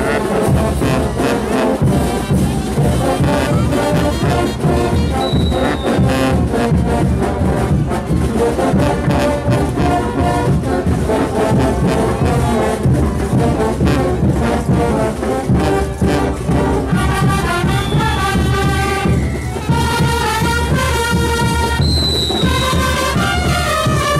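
Bolivian street brass band with sousaphones, trumpets and baritone horns playing caporales music, with a steady rhythmic pulse underneath. Held brass chords stand out more clearly in the last several seconds.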